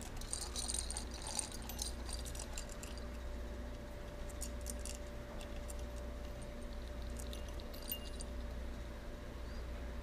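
Light clicks and a brief metallic jingle as a budgerigar climbs among plastic ball toys and hanging bells, with a faint steady hum underneath.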